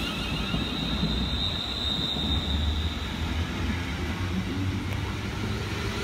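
London Northwestern Railway electric multiple-unit train moving slowly along the platform: a low rumble from the wheels with a steady high electrical whine.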